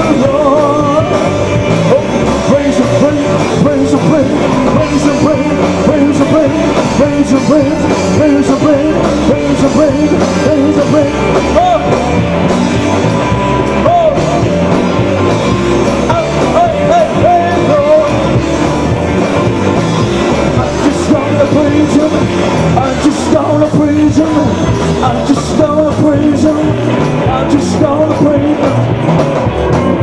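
A live rock band playing a Christian worship song, with electric guitars, bass guitar and drum kit, and a man singing into the microphone over the band.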